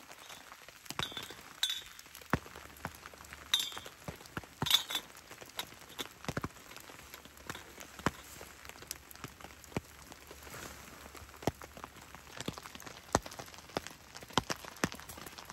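Wood campfire crackling and popping in the rain, with scattered drips and a few light clinks.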